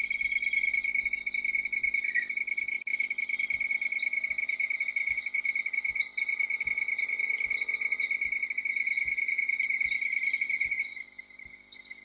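Insect trilling: one steady, rapidly pulsing high trill that stops about eleven seconds in.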